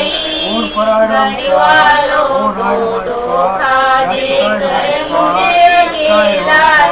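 A voice singing a continuous, wavering melodic line over a steady low tone.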